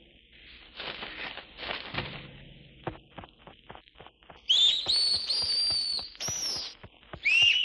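Horror sound effects: rustling, flapping noises and clicks, then, from about halfway in, loud shrill whistling shrieks that glide upward and hold, breaking off and starting again near the end.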